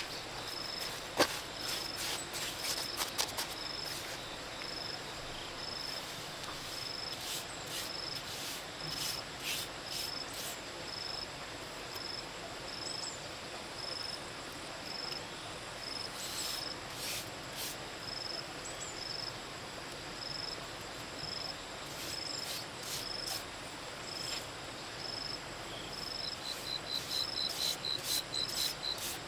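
An insect chirping steadily in a high, even rhythm, about one and a half chirps a second, with a second, faster high trill joining near the end. Scattered sharp clicks and taps, the loudest a little over a second in.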